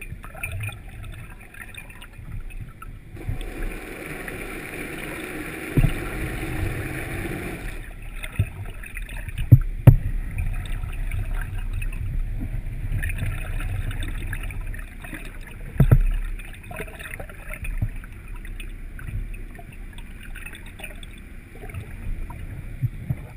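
Muffled underwater water noise picked up by a submerged camera, with a stretch of brighter hiss early on and a few sharp knocks, the loudest two close together about ten seconds in and another near sixteen seconds.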